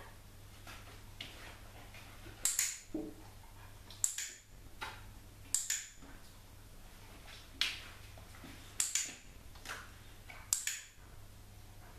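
Dog-training clicker giving sharp clicks, some in quick pairs, about six times at intervals of one to two seconds, marking the puppy's moments of standing on the bowl.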